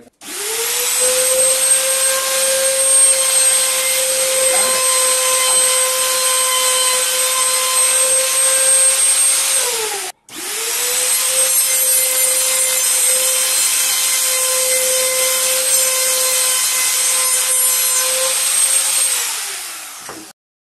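Makita trim router spinning up and running at a steady high pitch while trimming along the edge of laminated MDF board, then winding down. After a brief break about halfway through, a second run does the same, spinning up, running steadily and winding down near the end.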